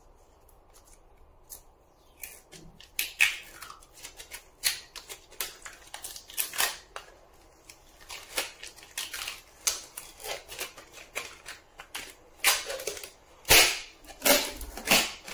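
A black adhesive sticker is being peeled off a lithium battery pack, crackling and snapping irregularly as the glue lets go. The crackling starts a couple of seconds in and is loudest near the end.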